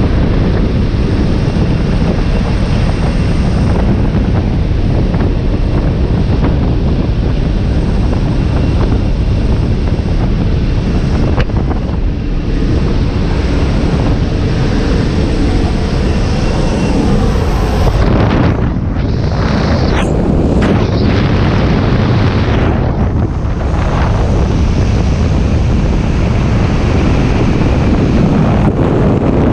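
Aircraft engine and rushing air through the open door of a jump plane, then, after the exit about two-thirds of the way through, heavy freefall wind blasting over a helmet camera's microphone.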